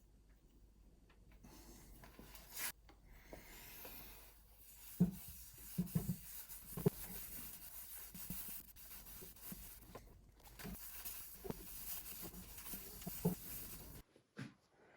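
Hand rubbing on the wooden parquetry tabletop: a steady, scratchy rubbing, broken by a few soft knocks about five to seven seconds in and again a few seconds later.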